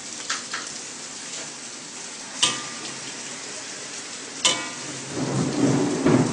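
Flat rice noodles frying in a wok with a steady sizzle, and a metal spatula striking the pan twice with a short ringing clank. The frying grows louder near the end.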